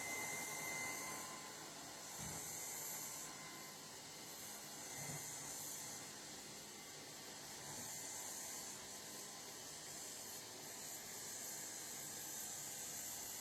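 Lefant robot vacuum cleaner running, a steady whirring hiss whose high part swells and fades every few seconds.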